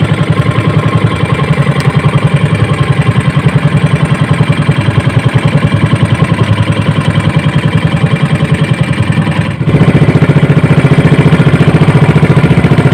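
Small outrigger fishing boat's engine running steadily with a rapid, even putter. About two-thirds of the way through it breaks off briefly and comes back louder.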